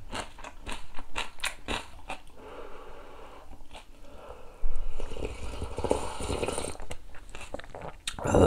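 Crunchy chewing of cubed radish kimchi (kkakdugi) for about two seconds. About halfway through comes loud slurping of cup-noodle broth, drunk straight from the cup.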